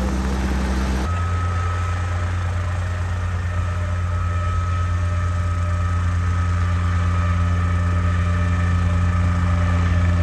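An engine running steadily, with a strong low hum and a constant high whine; the sound changes abruptly about a second in and then holds steady.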